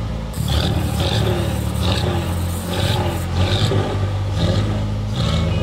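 Truck-mounted flamethrower on a 1952 Dodge B3 pickup firing a string of about seven short whooshing bursts of flame, over a steady low rumble.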